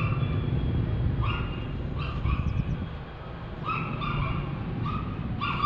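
Repeated short, high-pitched animal calls, about a dozen in irregular clusters, over a steady low rumble.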